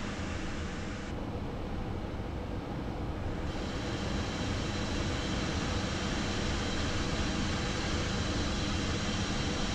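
Steady cockpit noise of an Embraer Phenom 300E on approach: airflow and the hum of its twin jet engines, heard inside the cockpit. The higher hiss dulls for a couple of seconds about a second in, then returns.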